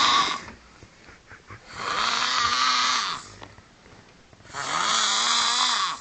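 A person snoring: the end of one snore, then two long rasping snores about three seconds apart, each rising and then falling in pitch.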